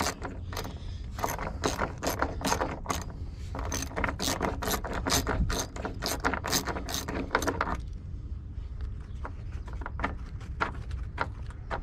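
Hand ratchet wrench clicking rapidly, about four or five clicks a second, as a bolt on the battery hold-down is turned; after about eight seconds the clicks grow sparser and fainter.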